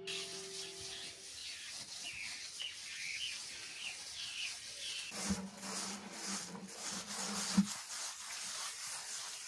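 Scouring pad rubbing in circles over fresh tadelakt lime plaster on a basin, a steady scratchy hiss, with birds chirping in the first half. A low hum comes in about five seconds in and ends with a sharp click just before eight seconds.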